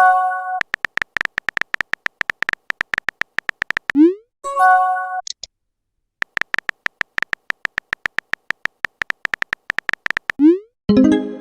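Texting sound effects: long runs of rapid electronic typing ticks, each with a high beep. Three times a short rising swoop is followed by a brief chime-like message alert: at the start, about four and a half seconds in, and near the end. The ticking stops for a moment around the middle.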